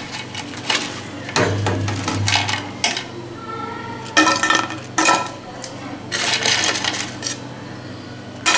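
Crisp deep-fried egg fritters being picked up and broken apart by hand over a plate: a series of short, dry crackling crunches with light knocks against the plate.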